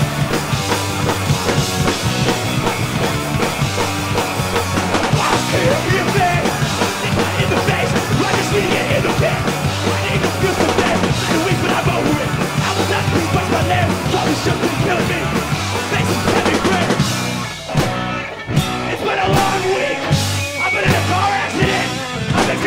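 A punk band playing live with electric guitars and a drum kit, loud and dense. About three-quarters of the way through the music breaks off briefly and comes back in with stop-start hits.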